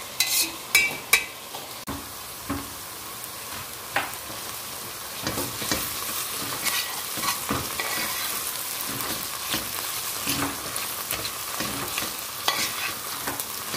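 Chopped onion, peppers and carrot sizzling as they fry in a stainless steel pot, stirred with a metal spoon that scrapes and clicks against the pot's sides and bottom. The clicks come thickest in the first second or so.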